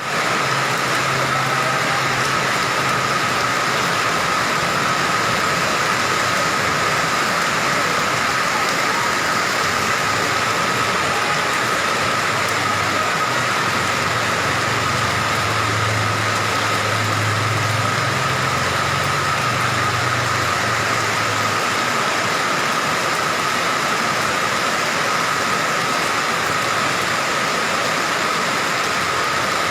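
Rain falling steadily: an even hiss that stays at one level throughout, with a low hum that comes and goes, strongest just after the middle.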